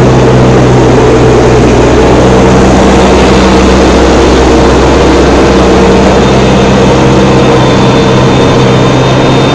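Tractor diesel engine running steadily at working speed, driving a trailed vertical feed mixer wagon as its side conveyor belt unloads feed.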